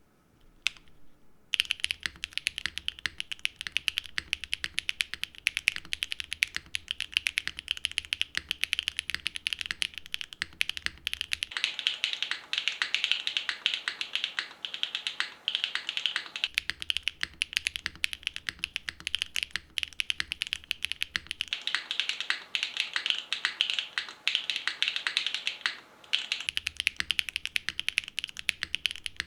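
Neo75 CU mechanical keyboard, a gasket-mounted board with a copper bottom case, being typed on fast and continuously: a dense patter of key clicks and keycap clacks. A couple of single key presses come first, and steady typing starts about a second and a half in.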